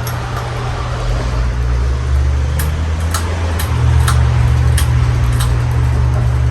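52-inch Gulf Coast Tiara ceiling fan running, with a steady low motor hum and the rush of moving air. A series of sharp ticks, about six of them roughly half a second apart, comes through the middle.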